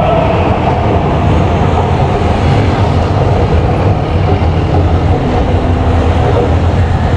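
São Paulo Metro Line 5 electric train pulling away along the elevated track, its motor tone fading as it recedes, over a steady low rumble.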